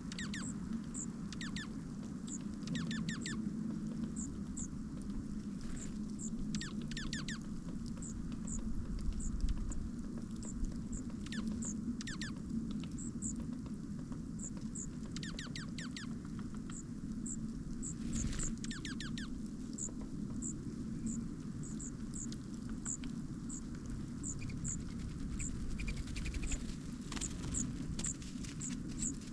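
Small birds at a feeder: short high chip notes repeated irregularly, about one or two a second, with several bursts of quick clicking and scratching at the feeder, over a steady low rumble.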